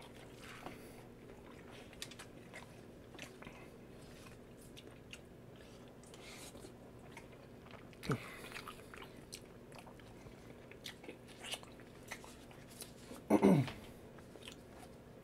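Close-miked biting and chewing of battered fried lobster: soft crunches of the fried crust and wet mouth smacks. A brief louder sound comes about eight seconds in, and another, falling in pitch, near the end.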